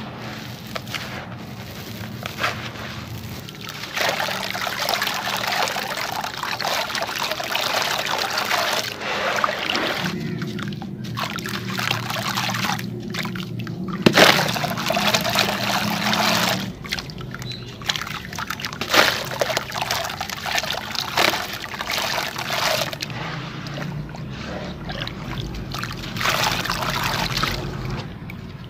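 Sand-cement chunks being crumbled by hand: first a dry, gritty crunching, then wet crumbling and squeezing in a tub of water with sloshing, trickling and splashes. The loudest splash comes about halfway through.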